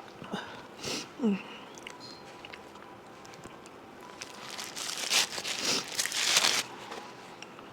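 Close-up eating sounds: biting and crunching on food, with a few small clicks early on and a run of loud crunching chews about four to seven seconds in.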